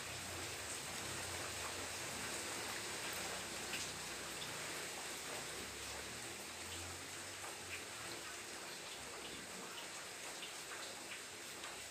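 Faint steady hiss with a low rumble and scattered light ticks, without speech.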